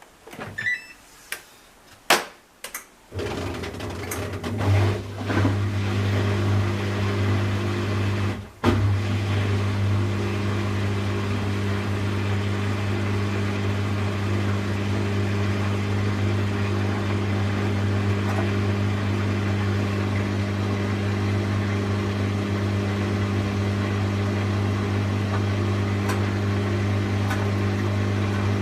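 A few clicks and knocks, then from about three seconds in a washing machine runs with a steady electric hum.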